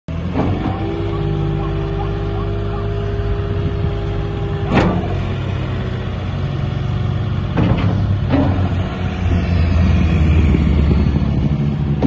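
Wacker Neuson SW16 skid steer's diesel engine running while the loader arms raise the bucket and lower it again. A steady whine rides over the engine for the first five seconds, sharp clunks come about five seconds in and twice around eight seconds, and the engine gets louder from about nine seconds.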